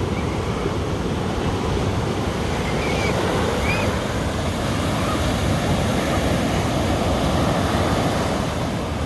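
Ocean surf washing onto a beach: a steady wash of waves, with some wind on the microphone.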